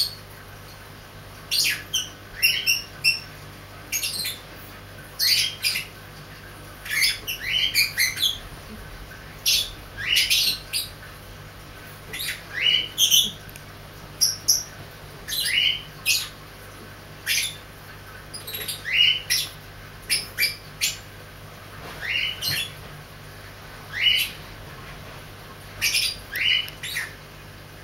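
An animal's short, high-pitched squeaks that rise in pitch, coming in clusters of one to three every second or two.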